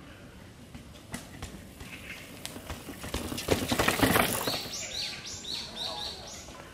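Mountain bike rolling down a dirt trail over log steps, with knocks and rattles, loudest as it passes close about four seconds in. After that a bird sings a short high phrase several times over.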